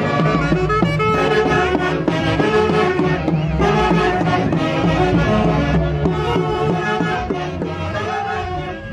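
Andean orquesta típica of saxophones, clarinets, violins and harp playing a huaylarsh, a steady beat under several melodic lines, beginning to fade out near the end.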